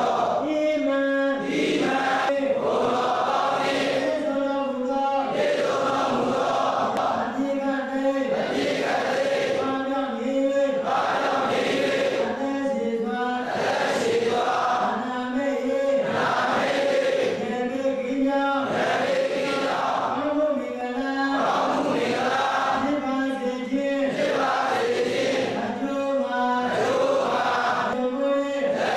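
A congregation of Buddhist monks chanting together in unison, a steady rhythmic recitation in held phrases of about two seconds with short breaths between them.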